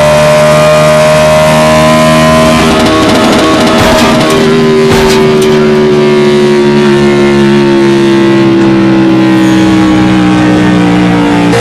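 Race car engines droning at speed, their steady pitches sliding slowly down. There is a burst of noise about three seconds in and a sharp knock about five seconds in.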